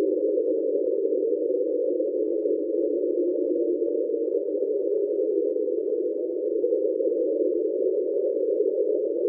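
NOAA underwater hydrophone recording of the 1997 "Train" sound: a steady, unbroken drone of several close tones, which the official explanation puts down to an iceberg scraping along the seafloor.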